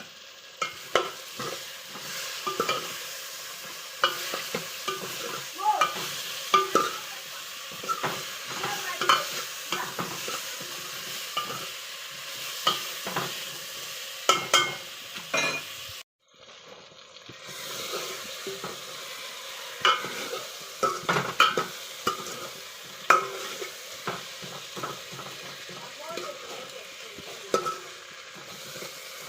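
Snails frying in a pan with a steady sizzle while a utensil stirs them, with frequent sharp clacks and scrapes against the pan. The sound cuts out for about a second around the middle.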